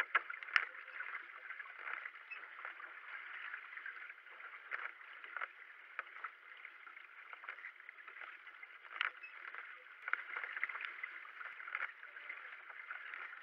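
Racing kayak being paddled: the paddle blades splash into the water at an irregular rhythm over the steady rush of water along the hull, with a sharp splash about half a second in.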